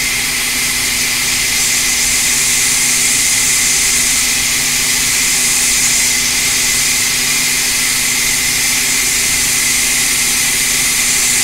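A hot-air gun blows steadily on a small tantalum capacitor, heating its solder so that the capacitor can be lifted off a logic board with tweezers. It makes a steady airy hiss with a faint hum.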